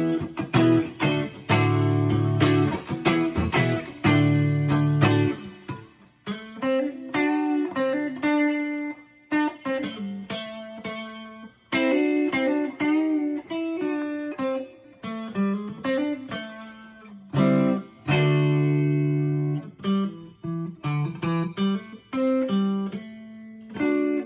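Relic Telecaster electric guitar being played: strummed chords mixed with picked single-note phrases, each phrase separated by a brief pause.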